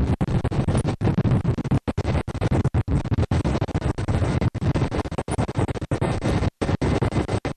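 Loud military helicopter noise with wind rushing through the open cabin door. The sound breaks up irregularly, cutting out briefly many times.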